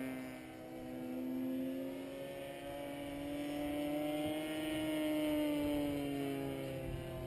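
Internal-combustion engine of a radio-controlled Ultimate aerobatic biplane flying overhead. It runs with a steady tone that drifts gently up and down in pitch. It fades slightly about half a second in and grows louder around five seconds in, as the plane moves about the sky.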